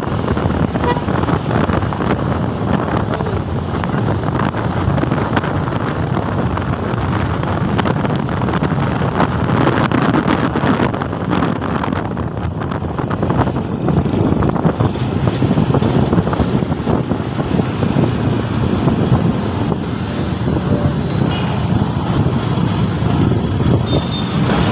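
Wind buffeting the microphone of a moving motorcycle, a steady rushing noise with the motorcycle's engine and road traffic underneath.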